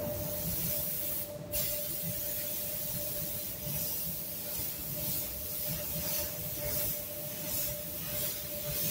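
Gravity-feed compressed-air spray gun hissing as it sprays blending solvent over fresh basecoat, the hiss swelling and easing in short repeated passes from a few seconds in. A steady hum runs underneath.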